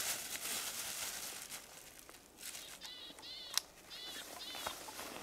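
A bird calling outdoors: a series of short, arched, fairly high calls, four in quick succession from about three seconds in, over rustling and wind noise. A single sharp click falls among the calls.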